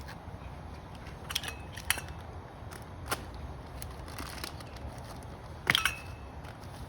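Hand tools and metal parts clicking: a few sharp, separate clicks, the loudest about six seconds in, over a steady low hum.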